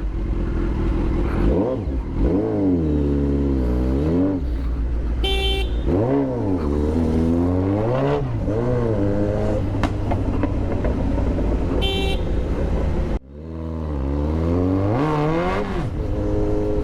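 Kawasaki Z900's inline-four engine through an Austin Racing aftermarket exhaust, revving up and falling back again and again as the bike accelerates through the gears. A short horn toot sounds about five seconds in and again about twelve seconds in. The engine note drops out abruptly around thirteen seconds in, then builds again.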